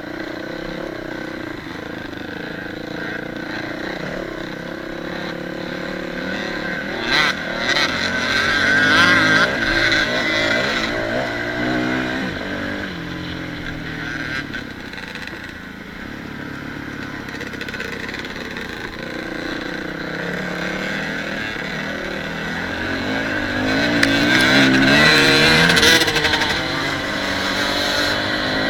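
Dirt bike engine being ridden on a trail, its pitch rising and falling as the throttle opens and closes through the gears. It gets louder twice, about eight seconds in and again near twenty-four seconds, as the rider gets on the throttle.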